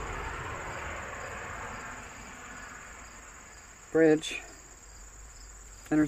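Insects, likely crickets, trilling steadily, with a high steady tone and a faster pulsing one. A broad hiss under them fades away over the first three seconds.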